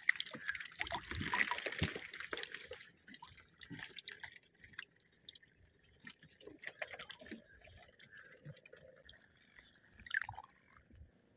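Shallow water splashing as a hand plunges in and gropes for a fish on the bottom, loudest in the first three seconds. Then quieter drips and small splashes, with another short splash near the end.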